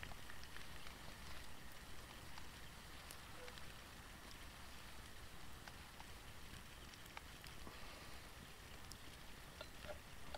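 Faint outdoor ambience: a soft steady hiss with scattered light ticks and a low rumble underneath.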